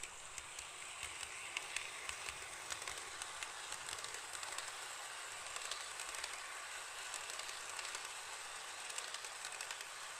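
HO-scale model freight train with a DF200 diesel locomotive model running along the track: a steady rolling hiss with frequent small irregular clicks from the wheels on the rails.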